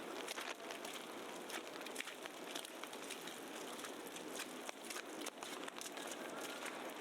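Snowy city street ambience: a steady hiss filled with dense, irregular crackling and pattering from wet snow and slush.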